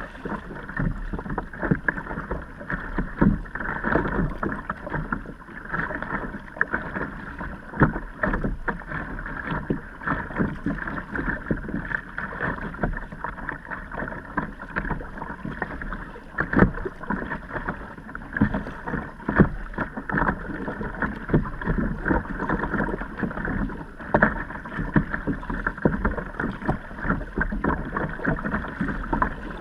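Water splashing and sloshing around a kayak, with irregular knocks and splashes throughout and wind on the microphone.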